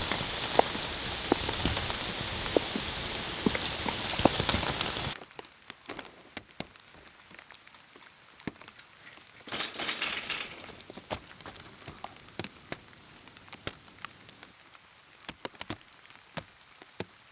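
Steady heavy rain with many small drop impacts, which cuts off suddenly about five seconds in. Quiet follows, with scattered single taps and one short rush of noise around ten seconds in.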